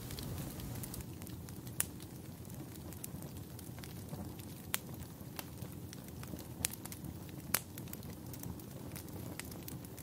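Smouldering wood and dry brush crackling, with a handful of sharp pops standing out over a low steady rush.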